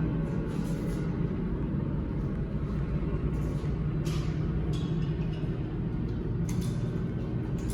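A steady low rumble, with a few faint clicks about four seconds in and again near the end.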